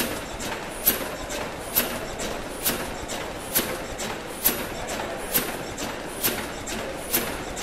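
Bancroft Mill's cross-compound steam mill engine running steadily: a sharp mechanical click repeats about every 0.9 seconds over a steady hiss.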